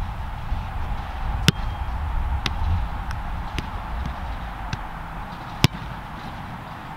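Soccer ball kicked with a Nike Mercurial Vapor 15 Elite boot about five and a half seconds in, the loudest of a handful of sharp knocks spaced about a second apart. A low wind rumble on the microphone runs underneath.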